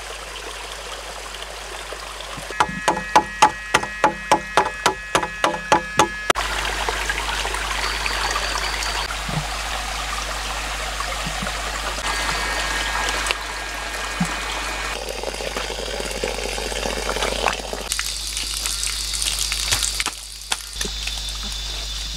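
Water running and trickling steadily, as in a small rocky stream. About three seconds in, a quick run of a dozen or so sharp, ringing knocks lasts nearly four seconds.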